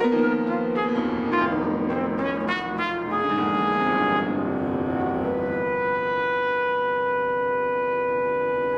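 Trumpet and grand piano playing together: piano chords under a trumpet melody, then the trumpet holds one long steady note through the second half.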